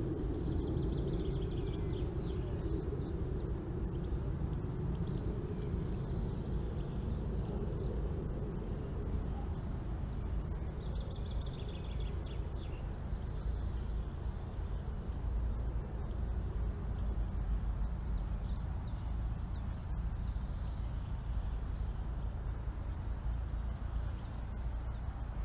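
Steady low ambient background rumble, as in a field recording, with a few faint high chirps about a second in and again about eleven seconds in, and a couple of small clicks.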